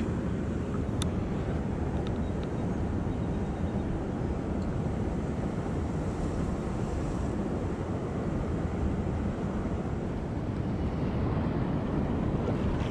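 Steady low rumble of wind on the microphone over rushing river water, with one light click about a second in.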